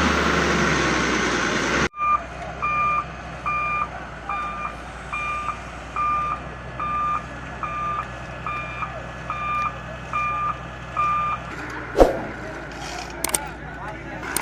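A loud rushing noise cuts off abruptly about two seconds in. Then comes a JCB 145 excavator's travel alarm, beeping steadily about three times every two seconds over the low hum of the diesel. The beeping stops and a single sharp knock follows near the end.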